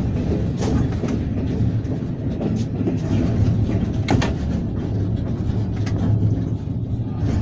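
Cab of a class 163 electric locomotive under way: a steady low rumble and hum of the running locomotive, with irregular sharp knocks of the wheels crossing points and rail joints, the loudest about four seconds in.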